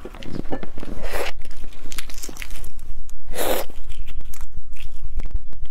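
Eggshell being cracked and peeled by hand off a fertilized egg (huozhuzi): small crackles and tearing of shell and membrane, with two louder rustles, one about a second in and one about three and a half seconds in.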